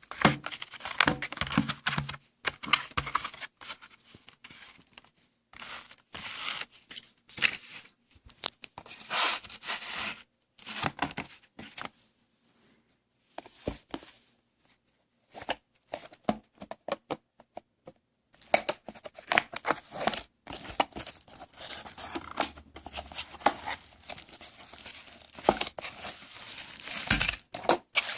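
Packaging being handled and opened: crinkling and tearing in irregular bursts with short pauses.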